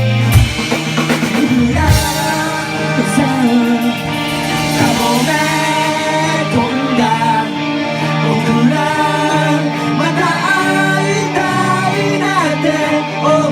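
A live rock band playing a song: drum kit, guitars and bass under a sung melody line, with a loud drum hit about half a second in and another about two seconds in.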